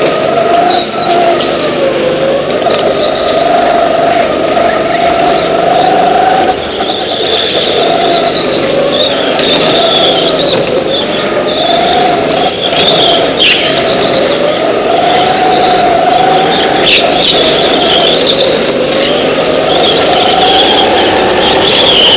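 Go-kart engine running at racing speed, its pitch rising and falling every second or two as it is throttled off and back on through the corners, with tyres squealing at times.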